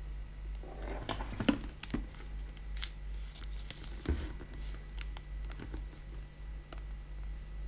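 Vinyl sticker film and its paper backing crinkling and rustling as they are handled and peeled on a helmet, with a few sharp clicks about a second and a half in and again about four seconds in, over a steady low hum.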